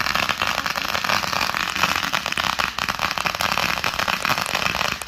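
Fireworks crackling: a dense, continuous run of rapid small pops and snaps at a steady loudness.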